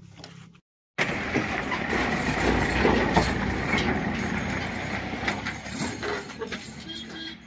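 Tata mini truck running and moving off across a dirt lot: loud engine and tyre noise that starts abruptly after a brief dropout about a second in and slowly fades.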